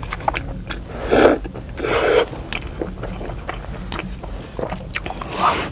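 A person slurping noodles coated in sticky sauce, three short loud slurps with chewing and small mouth and chopstick clicks in between.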